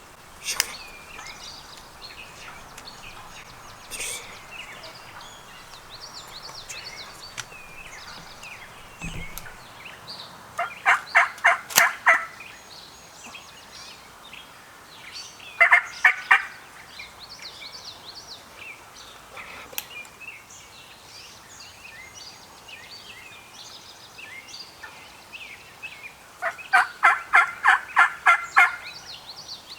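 Wild turkey gobblers gobbling three times: a fast, rattling gobble about a third of the way in, a shorter one around the middle, and a longer one near the end. Songbirds chirp steadily in the background.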